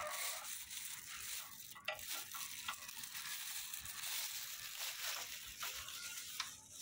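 Faint, scattered clicks and taps of a hand spanner on a stripped-down tractor engine, over a steady hiss.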